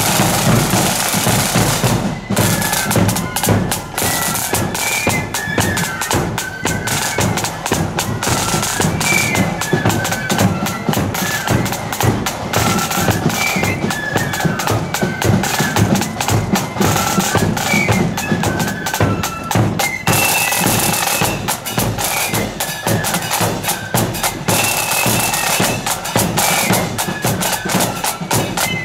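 Marching flute band playing: flutes carry a high, shrill melody over rattling snare drums and a steady bass drum beat. The drums play alone briefly before the flutes come in about two seconds in.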